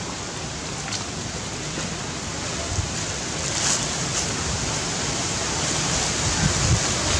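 A steady rushing hiss that grows a little louder toward the end, with a few faint clicks.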